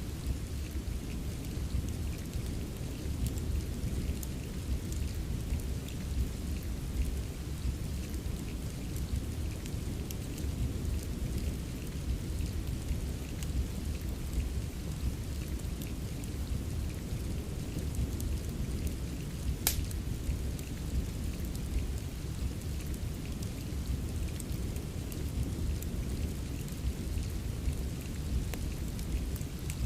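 Steady rain with a deep, even rumble, over a fireplace's small scattered crackles, with one sharp pop about two-thirds of the way through.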